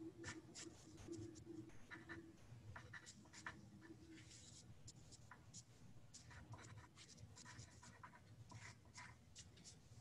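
Faint, irregular scratching of writing on paper, many short strokes in quick succession, over a low steady hum.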